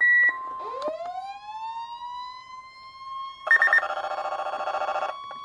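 Weather alert radios going off together. A short high beep, then a siren-like alarm that winds up in pitch over about three seconds, over a steady alert tone. From about three and a half seconds in, a second, pulsing multi-tone alarm sounds for about a second and a half.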